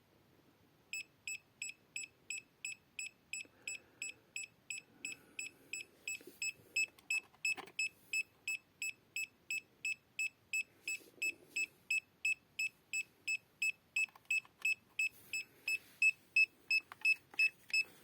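R&D RD630 EMF meter's alarm beeping, a short high beep about three times a second, louder near the end. The meter is warning of high electric and magnetic field strength from an unshielded 12 V AC/DC adapter close by.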